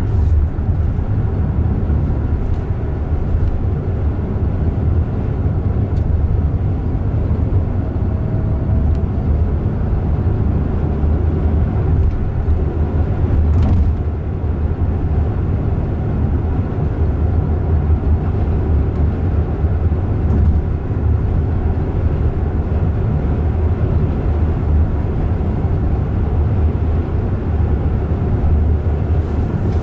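Steady low rumble of road and tyre noise heard inside the cabin of a moving Waymo Jaguar I-PACE. It is an electric car, so there is no engine sound.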